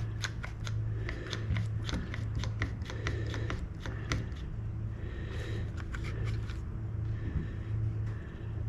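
Trigger bar clamp being ratcheted tight on the wooden workbench frame: a quick run of sharp clicks, about three or four a second, then a few short scrapes of wood and clamp being shifted. A steady low hum runs underneath.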